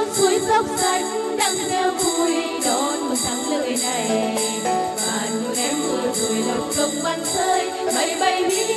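Women singing a song into stage microphones over backing music, with a steady beat of jingling percussion about two strokes a second.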